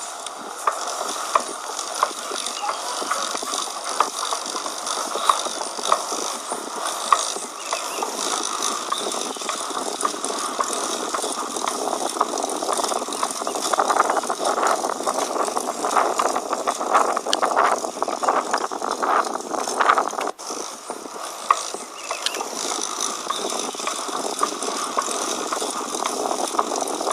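A bicycle drivetrain running, with a steady whir and a sharp click recurring about once a second. This is the noise the owner says persists after servicing the derailleur and seems to come from the centre (bottom bracket) area.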